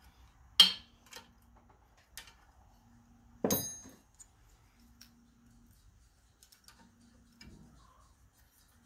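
Small metal hand tools clicking against the rocker arms while the valve clearance is set with a feeler gauge and wrench: a sharp click about half a second in, a louder metallic clink with a short ring about three and a half seconds in, and faint ticks in between.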